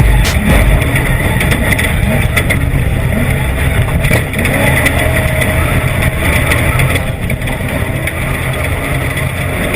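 Off-road desert race vehicle running hard: a loud, steady engine note with frequent rattles and knocks throughout.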